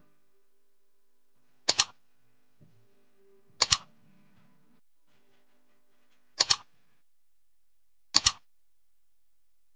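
Computer mouse click sound effect, four times about two seconds apart, each a quick double click, as an on-screen cursor presses like, share, subscribe and the notification bell.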